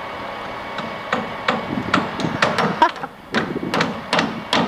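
Hammer blows driving nails into wood framing: a run of sharp, irregular knocks, about two to three a second.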